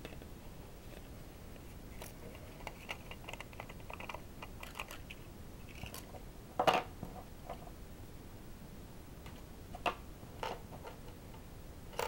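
Handling noise from an olive-drab Fulton flashlamp turned in the hands: a run of light clicks and taps, a louder knock a little past halfway, and two sharper clicks near the end.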